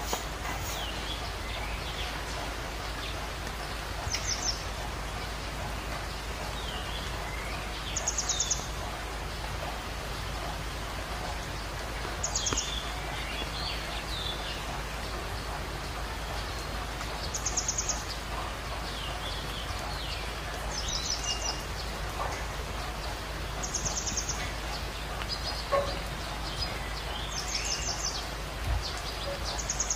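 Steady hiss of falling rain. A bird repeats a short, high trilled call every three to four seconds, with scattered fainter chirps between.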